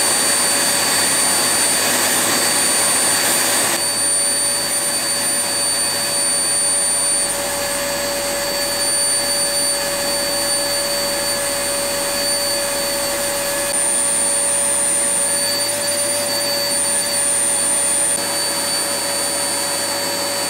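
Vacuum cleaner running steadily with a high whine as its hose nozzle works over a car's interior.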